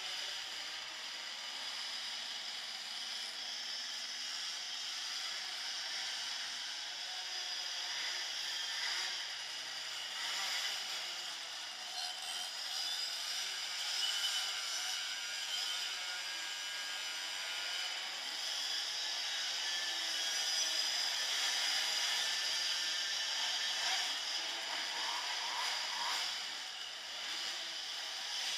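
Motorcycle engines running at low speed close around the camera, a steady, thin, buzzy mechanical sound with little bass.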